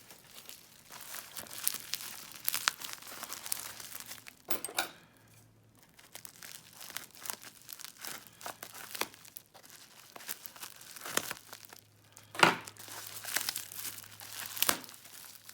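Taped wrapping being peeled and torn off a lock by hand: irregular crinkling, crackling and tearing, with a short lull about five seconds in and one louder crackle near the end.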